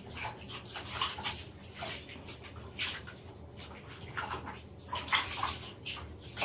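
Water splashing and sloshing in a plastic basin as a puppy is washed by hand, in small irregular splashes.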